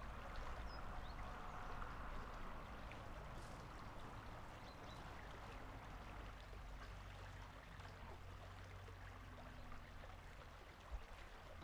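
Faint, steady rush of running water, with a low hum beneath it.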